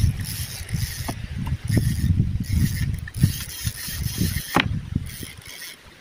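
Spinning reel being cranked in quick spells, its gears whirring as fishing line is wound in, stopping a little after five seconds. A short sharp sound comes about four and a half seconds in, and low rumbling noise sits on the microphone throughout.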